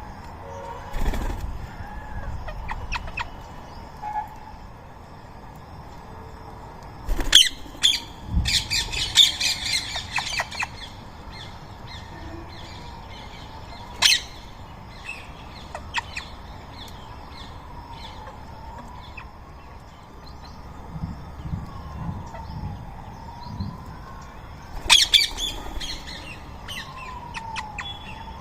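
Rose-ringed parakeets calling in short, harsh squawks. The calls come in clusters, with the busiest run about 8 to 10 seconds in and another near the end.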